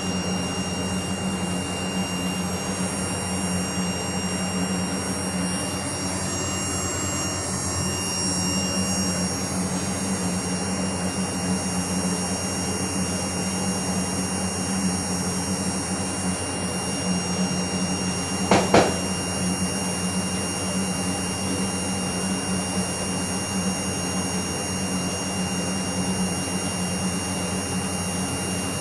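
CRT computer monitor making an abnormal steady hum, with thin steady high-pitched whine tones above it. A single sharp click comes about two-thirds of the way through.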